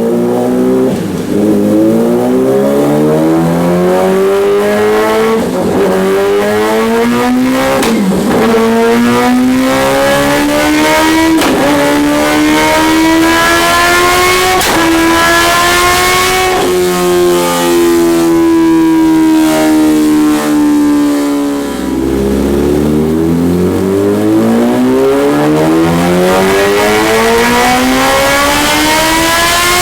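Kawasaki Ninja H2's supercharged inline-four, through a full stainless Alien Head 2 exhaust with no catalytic converter, pulling hard under load on a dyno. The pitch climbs steadily, drops back sharply about five times and climbs again each time, with the biggest drop near the end.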